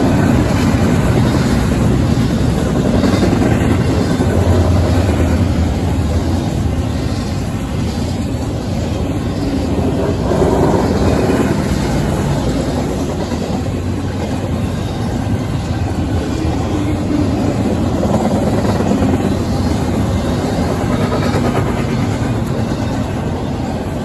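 CSX double-stack intermodal train passing: steel wheels on the rails under loaded container well cars, a steady loud rolling noise.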